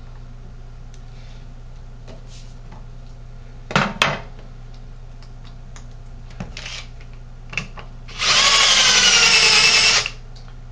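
Power drill spinning a 12-gauge roll-crimp bit for about two seconds near the end, roll-crimping the mouth of a shotgun shell. Before it come a few light knocks and clicks of the shells and tools being handled.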